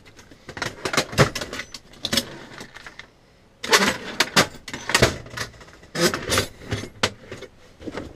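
Metal hand tools clinking and clattering as they are handled in a toolbox drawer: a string of sharp knocks and rattles, with a short pause about three seconds in.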